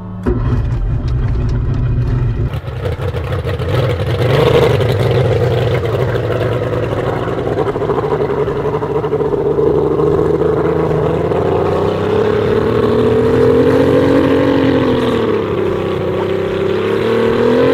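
The race boat's outboard engine fires up at the very start and runs steadily. About two-thirds of the way in it is revved up and back down, then up again.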